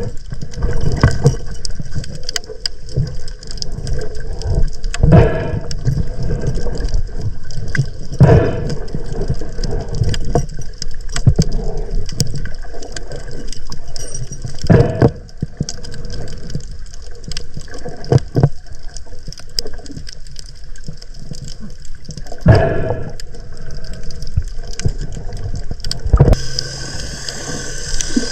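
Water sloshing and gurgling around the camera, as it sounds underwater or at the surface while spearfishing, with irregular knocks and thumps every second or two.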